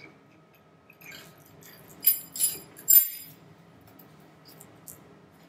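Metal clinking and jingling as the 948cc A-Series engine's cylinder head, with its rocker gear, is lowered over the studs onto the block and its pushrods. There are faint clinks, then three loud jangling rattles in quick succession about two to three seconds in.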